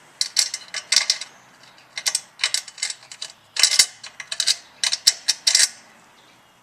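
Socket ratchet wrench clicking in four short bursts of rapid clicks, as bolts are run in and tightened.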